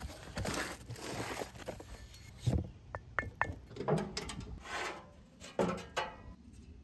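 Handling sounds: a cardboard box of firebricks being opened, then a knock and a few short metallic clinks, with scraping and knocking as a steel smoker firebox door is opened and its metal charcoal grate lifted out.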